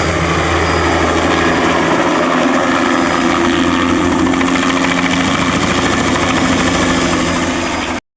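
Bell 206B-3 JetRanger III helicopter running: its Allison 250 turboshaft engine and two-blade rotor give a steady, loud sound that cuts off suddenly near the end.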